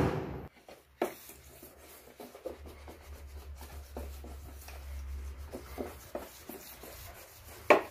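Dust being rubbed and scraped by hand off the blower fan of a split AC indoor unit: light, repeated scratchy strokes. There is a click about a second in and a sharper knock near the end.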